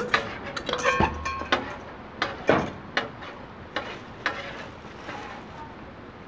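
Metal spatula scraping and tapping on a Blackstone flat-top steel griddle while beaten eggs are spread out, with a steel mixing bowl clinking and ringing briefly in the first second or so. The sharp clicks and scrapes come in an uneven run and die away after about four seconds.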